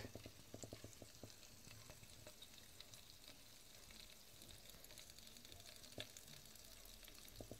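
Butter simmering into ghee in a heavy pot, nearly clear with its milk solids settled on the bottom, crackling faintly. A quick run of little pops comes in the first second, then scattered crackles, with a slightly louder pop about six seconds in.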